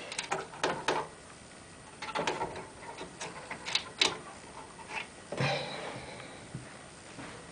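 Irregular small clicks and taps of a screwdriver and screws being worked into a computer case while a motherboard is screwed into place, with a brief rustle about five seconds in.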